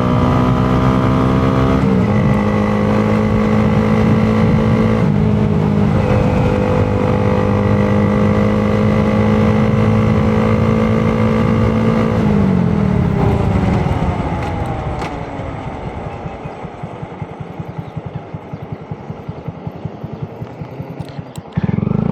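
Honda Grom's 125 cc single-cylinder engine under way at a steady pitch, dipping briefly twice, then winding down about 12 seconds in and ticking over with a quick pulsing idle. About 21 seconds in it revs up sharply again to pull away.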